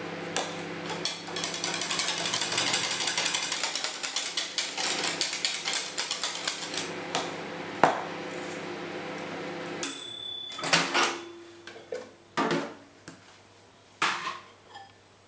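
Microwave oven running with a steady hum while butter melts under a cover and spatters in rapid crackles and pops. About ten seconds in, the hum stops with a short high beep, followed by a few knocks and the door clicking open near the end.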